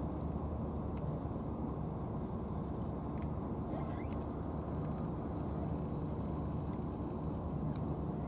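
Steady low rumble of an engine running at idle, with a faint short chirp about four seconds in.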